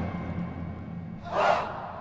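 A marching band's loud chord cuts off and dies away in the stadium's echo, then a short shouted yell is heard about one and a half seconds in.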